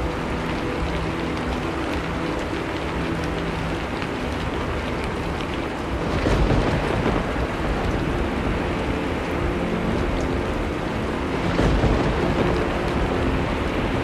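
Steady rain with distant thunder rumbling twice, about six seconds in and again about eleven seconds in.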